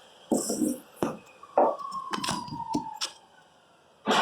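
Pencil and level or straight edge handled against a wooden stair stringer while marking it: a few short knocks and taps, a faint falling whine in the middle, then a loud rush of noise starting near the end.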